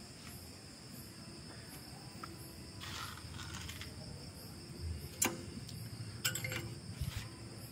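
A steady high-pitched hum with a few light clicks and a low knock about five to seven seconds in, typical of metal engine parts being handled.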